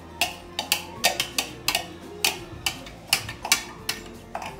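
A kitchen utensil clicking and knocking against a bowl over and over, about three or four sharp clicks a second in an uneven rhythm.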